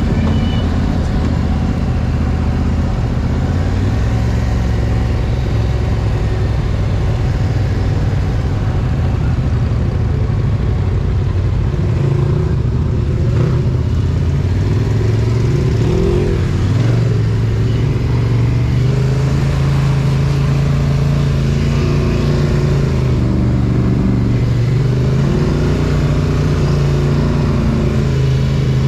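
Polaris ATV engine running while the quad is ridden along a dirt trail, its pitch rising and falling with the throttle.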